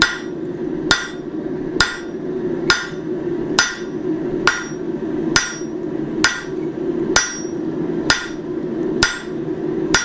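Blacksmith's hammer striking hot steel over the corner of an anvil at a steady pace of about one blow a second. Each blow rings briefly. The steel is being hammered thin at the anvil edge to cut the leaf off the bar. A steady low hum runs underneath.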